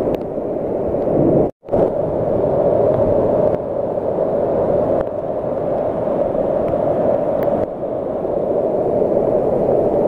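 Steady rush of falling and running water from the waterfall and its stream. It cuts out completely for a moment about one and a half seconds in.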